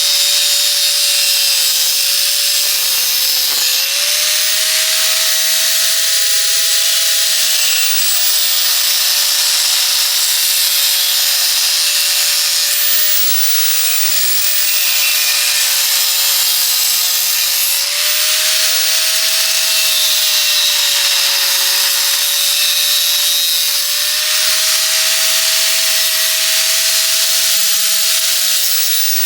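A power tool cutting into steel tubing from the trampoline frame, running without a break. Its steady whine dips slightly now and then under load, over a loud hissing grind.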